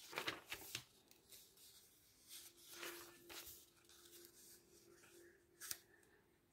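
Faint rustle of glossy catalogue pages handled and turned by hand, in a few short swishes: near the start, around three seconds in, and once more just before the end.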